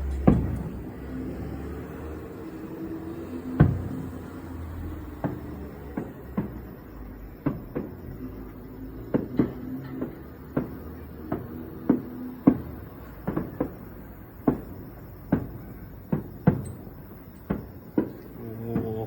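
Aerial firework shells bursting in a rapid, irregular series of sharp booms, each fading quickly. There are about two dozen, coming roughly one or two a second from about a quarter of the way in.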